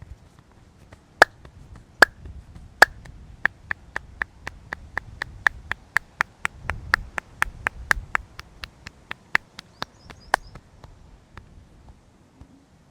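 Sharp hand claps of a head massage. Three single claps under a second apart, then a quick even run of about four claps a second lasting roughly seven seconds, which stops abruptly.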